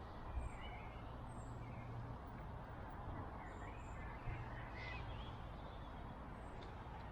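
Birds chirping and calling over a steady outdoor hiss and low rumble, with two soft thumps, one just after the start and one about four seconds in.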